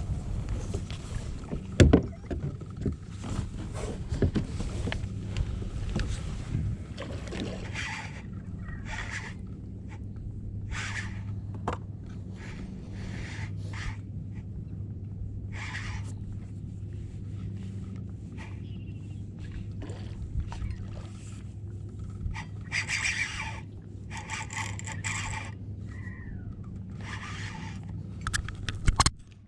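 Water sounds around a plastic fishing kayak: irregular splashes and scrapes against the hull over a steady low hum.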